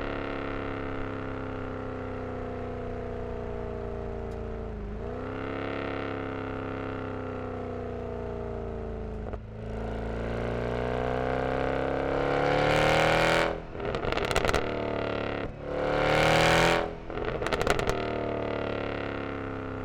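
Mercedes E63 AMG's 6.3-litre M156 V8 through a resonator-deleted exhaust: a steady drone at part throttle, then two loud accelerations with rising pitch, about 13 and 17 seconds in, each followed by a burst of sharp crackles as the throttle closes, settling back to a steady lower drone.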